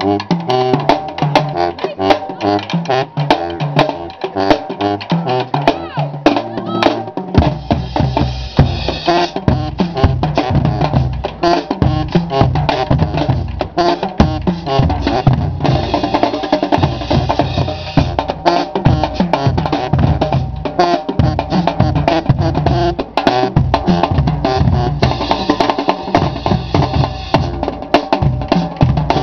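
Marching band playing in the stands: a drumline of snare and bass drums keeps a fast, dense beat under brass, saxophones and sousaphone. The low end comes in much heavier about seven seconds in.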